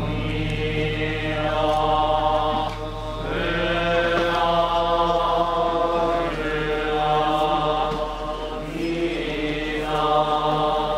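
Buddhist monks chanting together in long held notes, the phrases breaking and starting again every few seconds, over a low steady hum.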